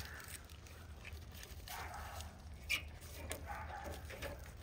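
Faint animal calls in two short spells, with a few light clicks.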